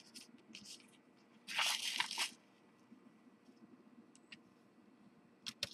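Ultra fine embossing powder poured onto stamped watercolor paper: a brief crunchy, hissing rustle of under a second about a second and a half in, followed by a few light clicks near the end.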